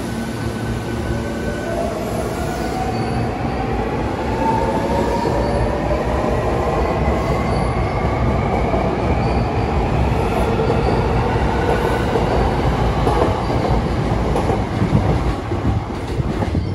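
Hankyu electric commuter train pulling out of the station: its traction motors whine in several tones that rise steadily in pitch as it picks up speed, over the running noise of its wheels on the rails.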